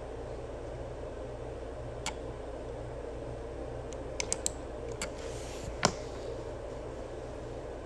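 Steady background hum with a few small scattered clicks, and one sharper, louder click-like sound about six seconds in.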